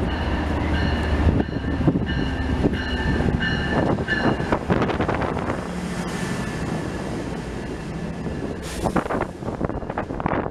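MBTA commuter rail diesel locomotive arriving at a station platform and rolling past, its engine rumbling low, with a pulsing high ringing in the first few seconds. Then the bilevel coaches roll by with wheel clatter and clicks, and a sharp hiss comes near the end.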